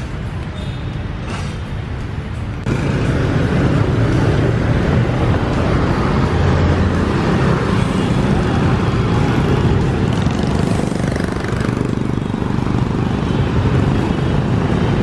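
City street traffic, motorbikes and cars going past: a steady rumble of engines and tyres that starts abruptly about three seconds in, after a quieter opening.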